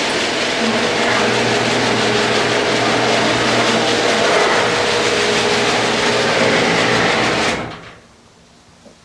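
Sectional garage door opening on an electric opener: a steady motor hum with the rumble of the door travelling up its tracks. It stops abruptly about seven and a half seconds in as the door reaches the top.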